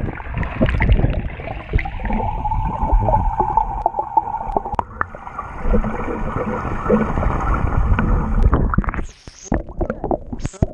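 Swimming-pool water heard with the microphone submerged: a muffled underwater rumble with many small knocks and a steady hum for a few seconds. Near the end it breaks the surface with splashing.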